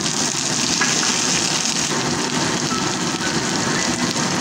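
Sliced onions, dried red chillies and freshly added tomato wedges frying in hot oil in a nonstick wok: a steady sizzle.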